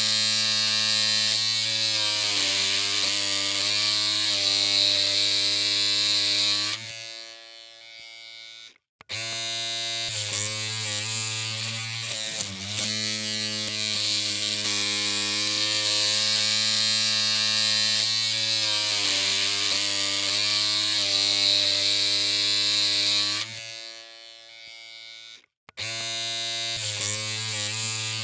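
Electric clippers running with a steady buzzing hum. The buzz drops away twice, about seven seconds in and again near the end, for roughly two seconds each, then starts up again.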